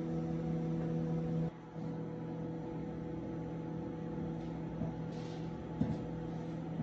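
Microwave oven running with a steady electrical hum. The hum drops abruptly about one and a half seconds in, then carries on weaker, with a few faint ticks near the end.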